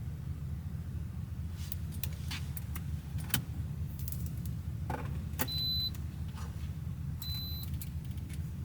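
Two short electronic beeps, the same high tone, about a second and a half apart, over a steady low rumble. Scattered clicks and rattles of small things being handled.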